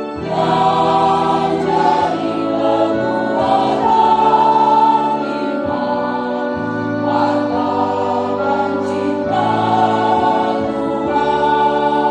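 Church choir singing a hymn together, holding long sustained notes.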